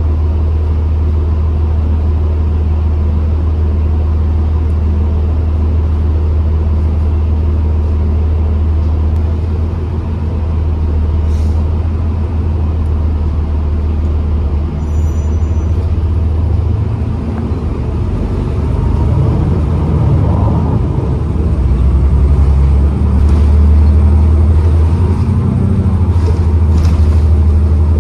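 2012 New Flyer XDE40 diesel-electric hybrid bus running, a steady low rumble that gets somewhat louder in the last few seconds.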